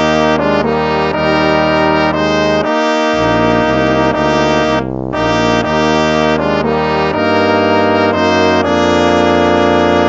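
Instrumental hymn tune in a brass sound, a melody of held notes moving over a sustained bass line.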